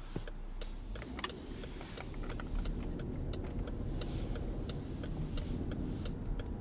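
Car's turn-signal indicator clicking steadily, about three ticks a second, over a low engine and road rumble inside the cabin.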